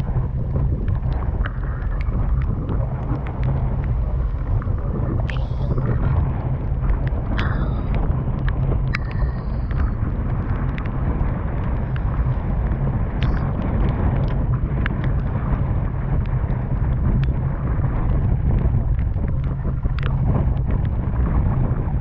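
Boat motor running steadily under way, a constant low rumble, with wind buffeting the microphone.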